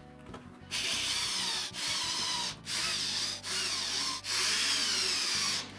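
Power drill driving wood screws into an oak fence, running in five short bursts with brief stops between. Its motor whine drops in pitch under load as each screw goes in, the last and longest burst near the end being the loudest.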